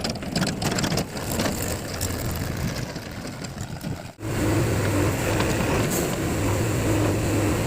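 Heavy diesel machinery engine running. The first half carries frequent short clattering knocks; after a sudden break about four seconds in, the engine runs at a steady hum.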